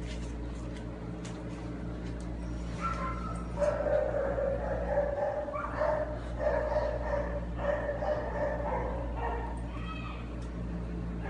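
Formosan mountain dog whining in a string of high, drawn-out whimpers, starting about three seconds in and stopping shortly before the end, over a steady low electrical hum.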